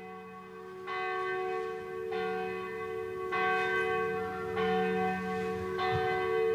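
A church bell tolling: five strikes about a second and a quarter apart over a lingering hum, growing steadily louder as it fades in.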